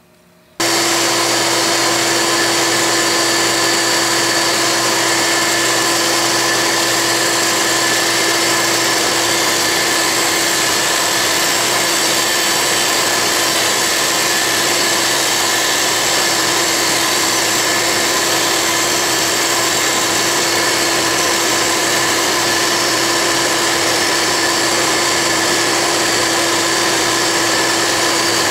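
Dumore tool post grinder running, its wheel grinding the point of a hardened lathe center, with a vacuum cleaner running as a spark pickup. A steady, even mechanical noise that cuts in suddenly at the start and holds level, with a low hum dropping out about nine seconds in.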